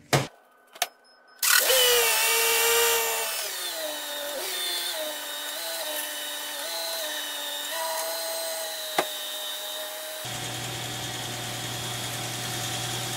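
Subaru Outback 3.6R's 3.6-litre flat-six started after a couple of clicks and running at a fast idle with a steady whine, the pitch dropping a couple of seconds in and then stepping up and down as it settles. A sharp click comes about nine seconds in, and a low hum joins the idle about a second later.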